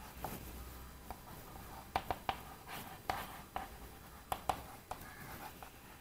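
Chalk writing on a chalkboard: a faint scrape of chalk with a string of about ten sharp taps as the chalk strikes the board.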